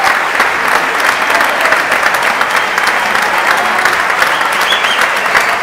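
Concert audience applauding at the close of a live orchestral performance: dense, steady clapping.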